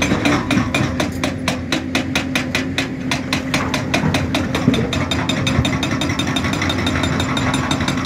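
Quarry machinery working: a diesel engine's steady drone under a rapid, even hammering of about eight knocks a second that quickens after the middle.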